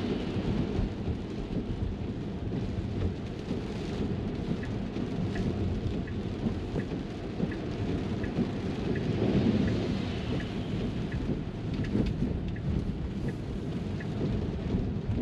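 Rain drumming on a car's roof and glass together with the rumble of tyres on a wet road, heard inside the cabin of a Tesla. From about four seconds in until near the end, a turn-signal indicator ticks steadily, about three ticks every two seconds.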